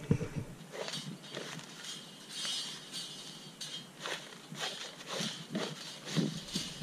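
Irregular crunches and scrapes from footsteps in deep snow and a fish tape being worked in by hand to pull cable through.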